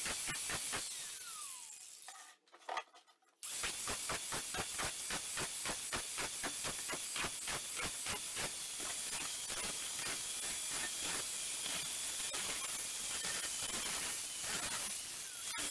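Angle grinder with an abrasive disc grinding down the rough casting of a cast steel anvil's horn and edges: a steady, hissing grind with fast pulsing as the disc bites the metal. It drops out for about a second a little over two seconds in, then resumes.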